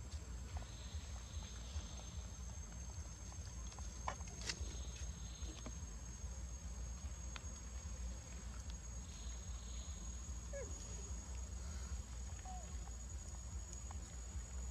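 Insects trilling steadily at a high pitch over a low rumble, with a few faint clicks about four seconds in.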